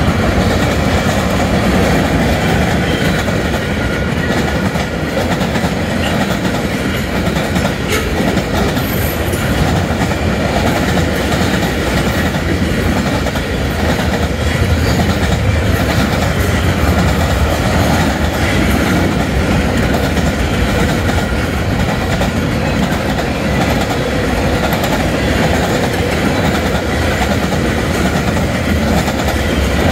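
Freight train cars (covered hoppers, gondolas and tank cars) rolling steadily past, their steel wheels running on the rails with a continuous, even noise.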